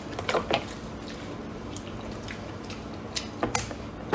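Wet eating sounds from someone eating seafood: a few sparse squishing clicks about half a second in and again past three seconds, with a louder one at the end.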